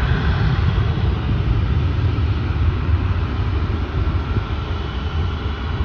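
Jet airliner's engines giving a steady, deep roar as it climbs away after takeoff.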